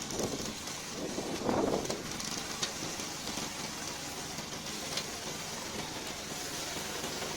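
Remote-control lawn mower running steadily, a constant noisy machine sound of motor and cutting blades, with a couple of brief louder swells in the first two seconds.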